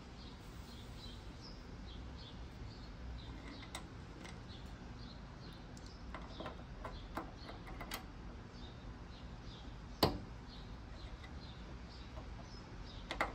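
Small metal clicks and taps as a chrome trigger-release catch is fitted to an MG TD's hinged fuel filler cap, with one sharp click about ten seconds in and more near the end. Faint high chirps, like a small bird's, repeat about three times a second behind them.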